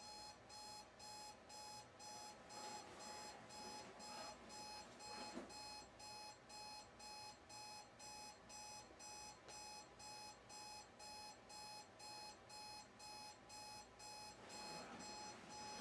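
Electronic alarm clock beeping faintly, a steady repeating beep about two and a half times a second.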